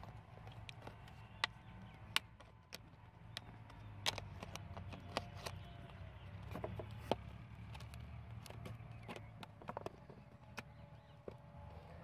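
Utility knife cutting into a thin plastic drink bottle: irregular sharp clicks and crackles of the plastic as the blade works, over a steady low rumble.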